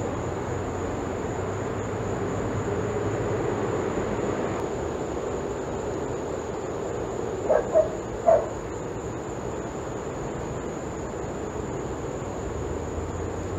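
A dog gives three short barks in quick succession about halfway through, over a steady background hiss.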